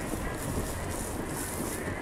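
Wind buffeting the microphone, mixed with the calls of a large flock of Australian shelducks (mountain ducks) in flight.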